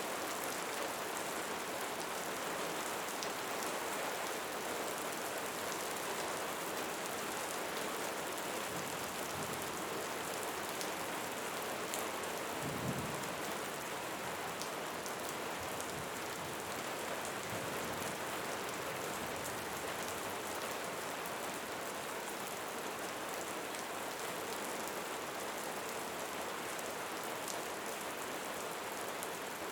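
Light rain falling steadily on surfaces, a constant hiss with scattered sharp drop ticks. A brief low rumble comes about halfway through.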